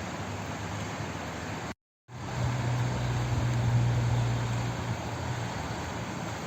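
Steady rushing sound of flowing water. It cuts out to silence for a fraction of a second about two seconds in, then resumes with a low steady hum underneath for a few seconds.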